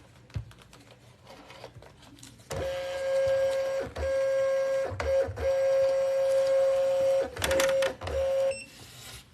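Rollo thermal label printer's feed motor running, a steady whine in several runs of a second or two with short breaks, starting about two and a half seconds in. A few clicks come near the end.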